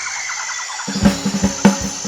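Background music: a light, high melody, then a drum beat comes in about a second in.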